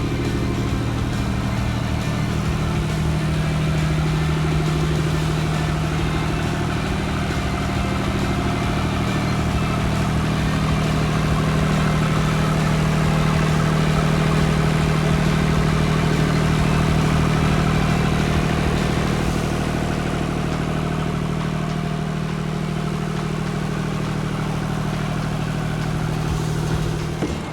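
AKSA AJD33 generator's John Deere 3029 three-cylinder diesel engine running steadily, slightly louder for a while in the middle.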